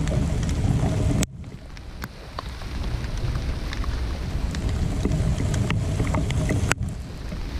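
Wind buffeting the microphone with light rain falling, heard as scattered drop ticks over a hiss. The low wind rumble drops out abruptly about a second in and again near the end.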